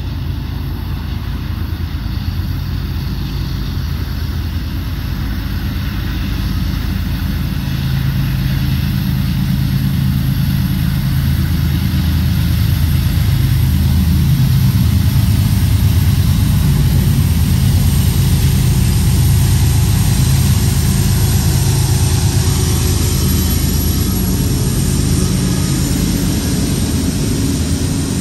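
Lead BNSF diesel locomotives of a heavy freight train approaching: a deep engine rumble growing steadily louder, with wheel and rail noise rising over the last several seconds as the units draw alongside.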